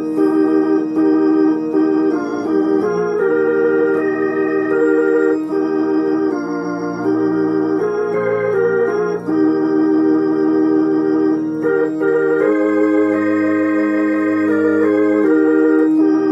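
Roland HP 704 digital piano played with an organ voice: a hymn in held chords that sound steadily without fading, changing every half second to a second or so.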